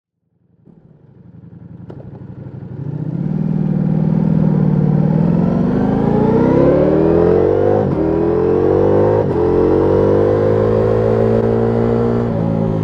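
Ducati Multistrada V4S Rally's V4 engine through an Akrapovic exhaust, accelerating hard, its pitch climbing. It fades in over the first few seconds, and there are two quick upshifts about two-thirds of the way through before it settles at a steadier pitch.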